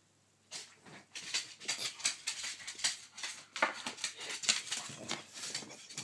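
Pug snuffling and scrabbling at the side of a bed: a fast, irregular run of short snorts and scratching sounds starting about half a second in.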